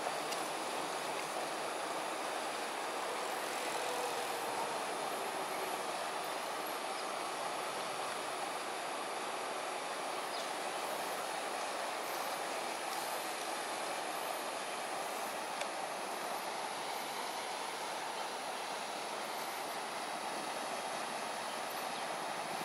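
Steady outdoor background rush with a faint high hiss above it and no distinct events.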